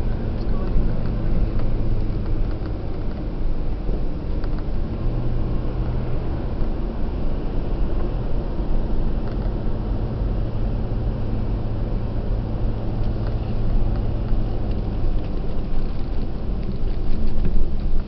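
Road and engine noise inside a moving car's cabin: a steady low rumble with a constant low hum.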